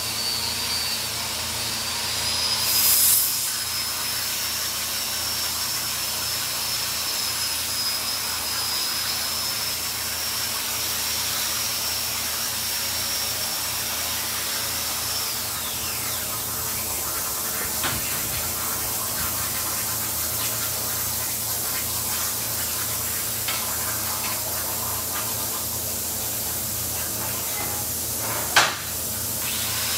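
Steady machine noise with a high whine that fades out about halfway through, and a sharp knock near the end.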